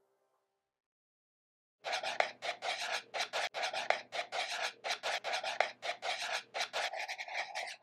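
A white marker scratching across a black writing surface in quick short strokes, about three or four rasps a second, starting about two seconds in.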